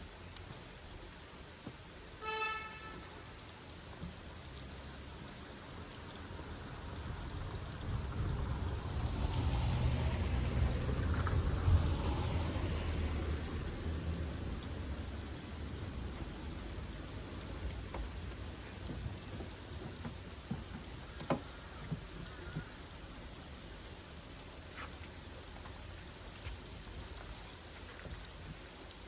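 Insects calling: a high chirp repeats about every three seconds over a steady high hiss. A short horn toot sounds about two seconds in, and a vehicle passes, loudest around ten to twelve seconds in.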